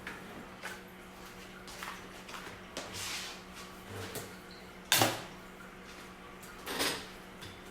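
Intermittent knocks and clatter of hard parts being handled, the loudest knock about five seconds in, over a steady low hum.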